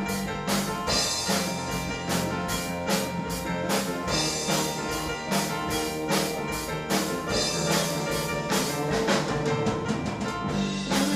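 Live rock band playing: a drum kit keeps a steady beat under electric bass, electric guitar and keyboard.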